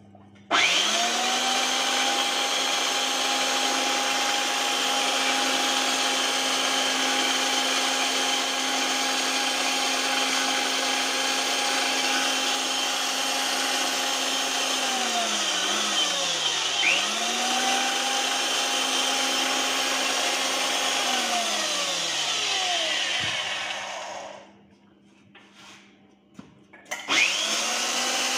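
Electric pipe threading machine's motor starting and running with a steady whine as it turns a threaded GI pipe, then switched off and spinning down with a falling pitch about fifteen seconds in. It starts again, runs about five seconds and spins down again, and after a few seconds of much quieter sound it starts up once more near the end.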